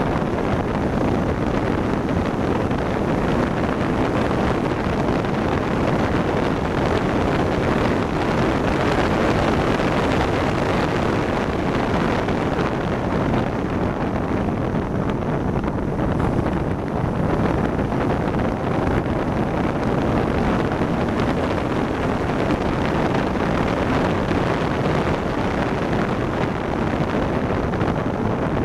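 Steady rush of wind buffeting the microphone in an open-cockpit track car at speed, around 75 to 80 mph, with the car's engine and tyre noise running underneath.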